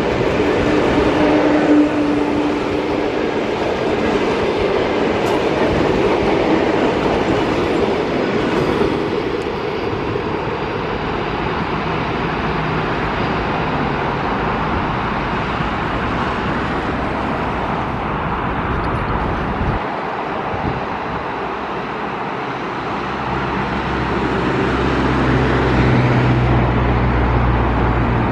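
ED4M electric multiple unit running along the track: a steady rumble of wheels on rail with a faint motor whine in the first couple of seconds. A low steady hum swells in near the end.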